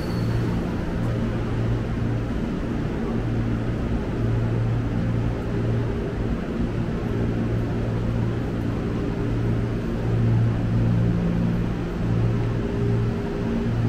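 Steady low electrical hum with a fan-like hiss from an electric commuter train standing at the platform, its onboard equipment running.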